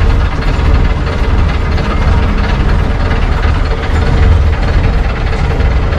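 A moored boat's engine idling steadily, with a heavy low hum and a constant mid-pitched drone over it.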